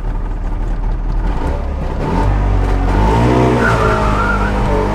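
Trabant engine revving hard under full acceleration while the tyres skid and squeal on a snowy road.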